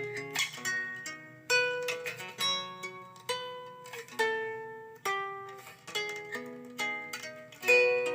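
Acoustic plucked-string music, picked guitar or ukulele notes, played back through a PAM8403 amplifier board and a small TV speaker, with no deep bass.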